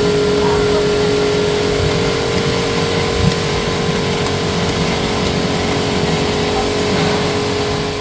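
Dairy machinery switched on and running loud and steady: a strong constant hum over a wide hiss, with a single knock about three seconds in.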